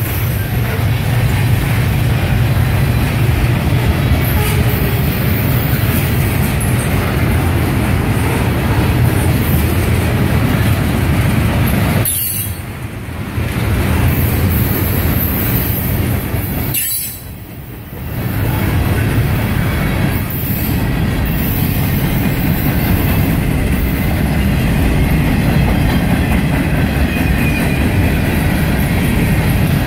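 A CSX manifest freight train's covered hoppers and tank cars rolling past, a loud, steady rumble of steel wheels on rail that dips briefly twice.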